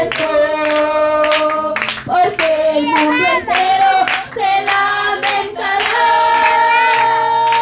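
A woman singing a Spanish hymn through a microphone and PA while the congregation claps along. She holds a long steady note near the end.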